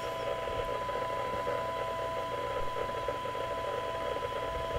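Repeater receiver audio at the 12 dB SINAD point: a steady 1 kHz test tone half-buried in loud static hiss, with a second, fainter steady tone below it and a low hum. The hiss is the receiver's noise floor, because the signal sits right at the limit of its sensitivity, about −123 dBm.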